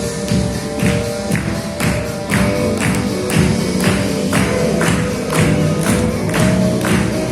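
Background music with a steady beat, its percussion struck about twice a second over held notes.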